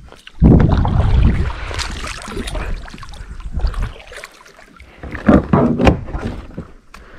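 Kayak paddle splashing through the water in a few strokes, loudest just after the start and again around five to six seconds in, with water sloshing against the plastic hull between strokes.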